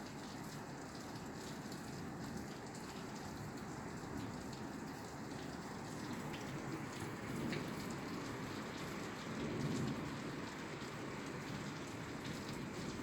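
Steady rain falling on a roof, a dense patter of drops. A low rumble of thunder swells twice a little past the middle.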